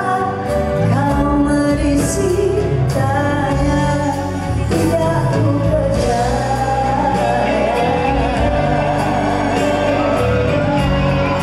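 A female singer singing live with full band accompaniment through a concert sound system, with sustained, wavering sung notes over a steady bass, heard from among the audience.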